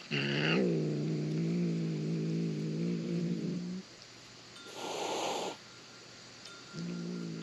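A cat growling low: a long, steady growl of almost four seconds, a short breathy hiss, then a second, shorter growl near the end.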